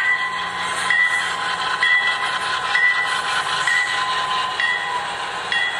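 A model diesel locomotive's sound system ringing its bell, a short ding about once a second, over the steady running noise of the model train on the track.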